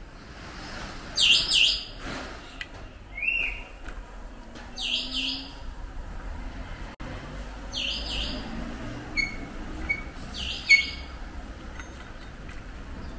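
Birds chirping, short bright calls in quick pairs repeated about every three seconds, with a single arched whistled note in between.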